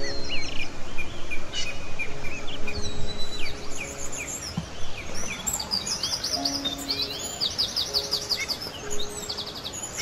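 Small songbirds chirping and whistling in short rising and falling notes, with fast ticking trills about halfway through. Soft background music with long held notes plays underneath.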